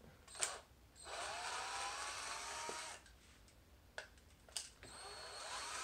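Cordless power driver backing screws out of an RC truck's plastic chassis: the motor whines for about two seconds, rising a little in pitch. A few sharp clicks follow, then a second, quieter run near the end.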